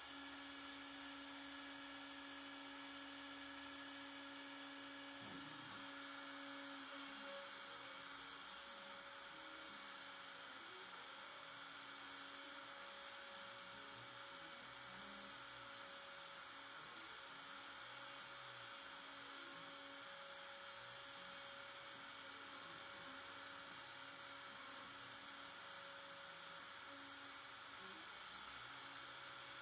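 CNC router running its area-clearance pass with a 1/8 inch end mill in wood, heard faintly as a steady spindle hum. Stepper-motor tones shift up and down in pitch as the axes move, starting about five seconds in.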